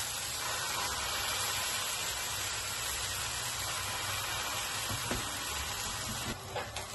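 Tortilla smeared with birria sauce frying in a nonstick pan, a steady sizzle. The sizzle quietens near the end.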